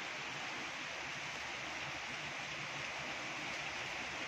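Steady rain falling: an even, unbroken hiss with no separate drops or knocks standing out.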